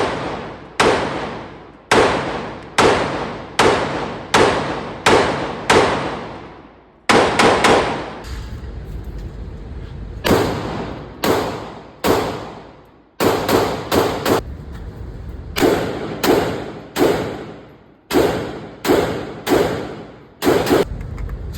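Gunshots: about two dozen single shots fired a little under a second apart in several strings with short pauses, each crack followed by an echoing tail.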